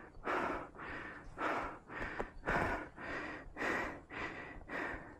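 Heavy, rapid breathing close to the microphone, about two breaths a second: a person out of breath from climbing a steep mountain trail.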